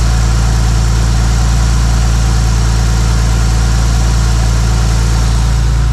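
Nissan RB straight-six engine idling steadily, turning its newly fitted GM 140-amp alternator.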